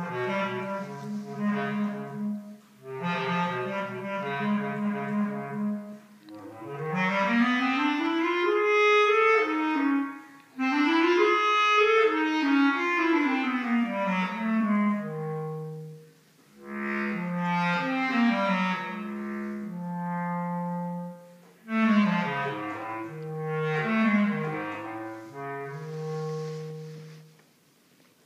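Solo bass clarinet playing: rapidly repeated low notes, then fast runs sweeping up and down through its range, then held low notes broken by short leaping figures.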